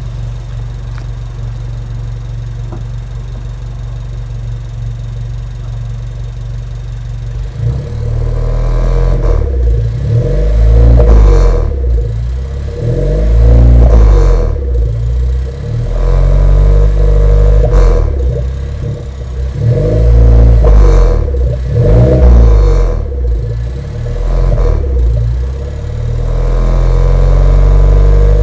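Suzuki Swift Sport ZC33S's 1.4-litre turbocharged four-cylinder exhaust, through an HKS Hi-Power Spec-L muffler, idling steadily and then revved up and down repeatedly from about eight seconds in. A metal-on-metal scraping from inside the muffler comes in between 1,500 and 2,500 rpm, whether on or off the throttle: a fault reportedly seen in early production lots of this muffler.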